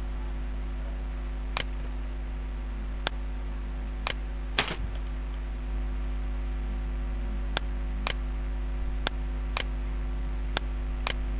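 Computer mouse clicking: about a dozen sharp single clicks at uneven intervals, over a steady low electrical hum.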